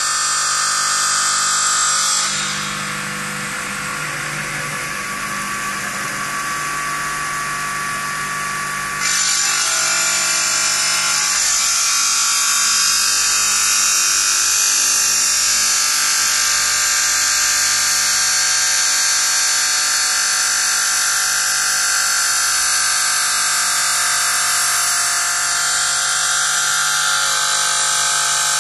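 CNC stone bridge saw running, its diamond blade cutting stone with a steady high whine. Between about two and nine seconds in, a hiss takes over and the sound drops a little, then the steady whine returns.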